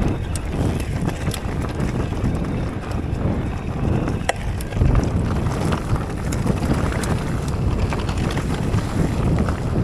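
Wind rumbling on the action camera's microphone as an electric mountain bike rides down a dirt forest trail, with tyres rolling over soil, leaves and stones. A few sharp clacks come from the bike jolting over bumps.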